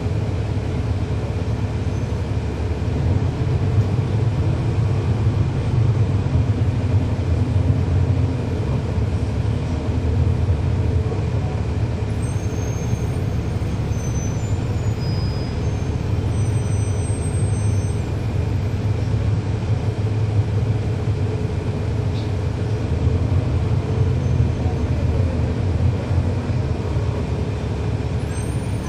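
Cummins ISL9 inline-six diesel engine of a 2011 NABI 40-SFW transit bus running, heard from inside the rear of the bus as a steady low drone with slight rises and falls in level.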